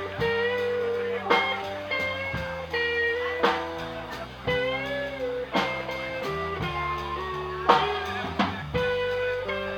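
Electric guitar played live, chords picked every second or two and left to ring.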